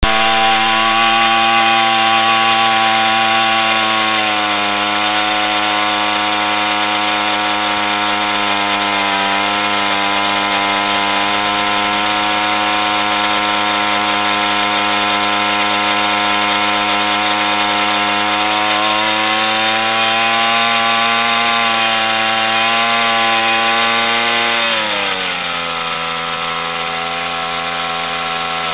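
Overhauled Sachs 3V 50 cc two-stroke moped engine running steadily at high revs under load. Its pitch dips slightly about four seconds in and falls near the end as the revs drop.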